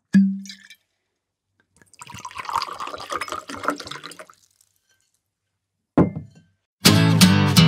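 Intro sound effects: a sharp hit with a short low hum, then a couple of seconds of many small clicks and rustling, a second sharp hit, and strummed acoustic guitar music starting near the end.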